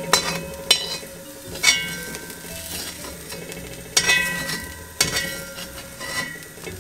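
A long metal spoon scraping and clinking against a large aluminium pot as browned onions are scooped out, with about six sharp strikes that leave the pot ringing. Oil sizzles faintly underneath.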